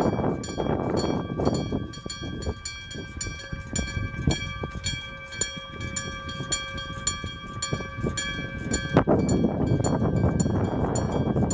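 Electromechanical bell of a Japanese level crossing (electric-bell type) ringing steadily, struck about three times a second. A train rumbles over the crossing at the start and again in the last few seconds, with a sharp clank about nine seconds in.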